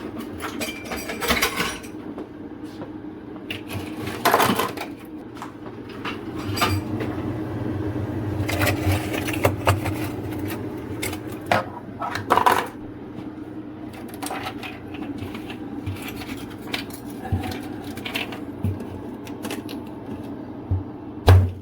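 Clicks, taps and clatter of hand tools and plastic fridge parts as a refrigerator freezer is taken apart, over a steady low hum.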